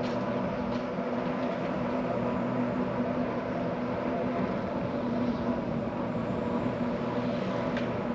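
A steady mechanical hum with even background noise underneath.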